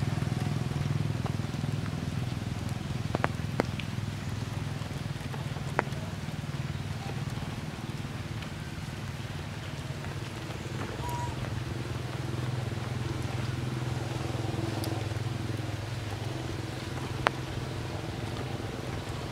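Steady low mechanical hum, like an engine running nearby, with a few sharp ticks scattered through it.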